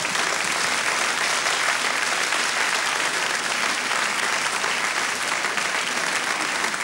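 Studio audience applauding, a dense, steady round of clapping from many hands.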